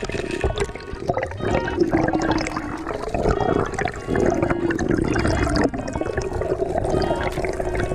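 Water sound picked up by a camera below the surface: a muffled, uneven rushing and gurgling with scattered small clicks and a wavering hum.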